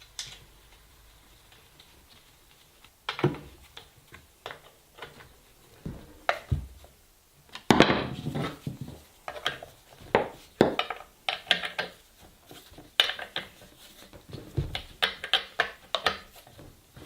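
Irregular metallic clinks, knocks and short scrapes of hand tools and a chainsaw bar being handled, with loose clusters of clatter and single sharp knocks.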